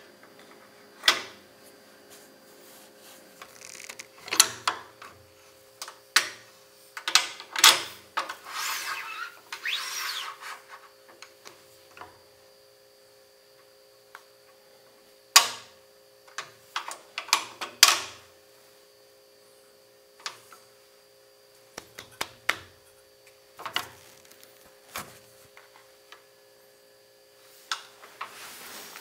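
Woodpeckers Saw Gauge, a dial indicator on a metal base, handled on a metal table-saw top and in its miter slot: scattered sharp clicks and knocks as it is set down and bumped, with a sliding rub about eight to ten seconds in. A steady faint hum runs underneath.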